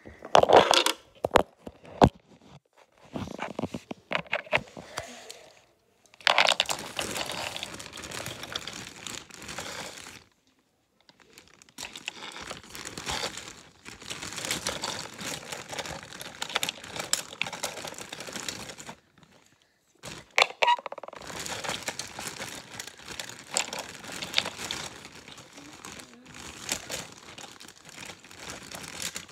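Crinkling, rustling handling noise of fingers rubbing over a phone camera and its microphone, with many small clicks. It comes in long stretches, broken by short silences about ten and nineteen seconds in.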